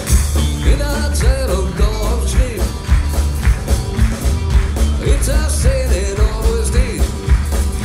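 Live band playing: guitars, bass guitar and keyboard over a steady beat, with male vocals singing the melody.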